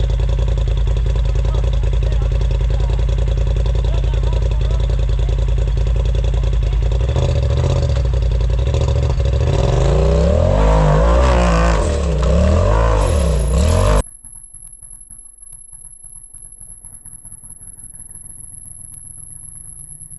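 Off-road vehicle's engine running hard on a rock climb, then revving up and down repeatedly from about seven seconds in as it is gunned up the rocks. It cuts off suddenly about two-thirds of the way through, leaving a much quieter, distant engine.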